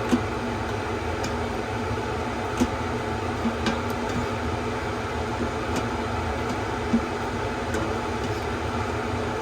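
A spoon stirring food in the Instant Pot's stainless steel inner pot, with a few light clicks against the pot, over a steady fan-like hum.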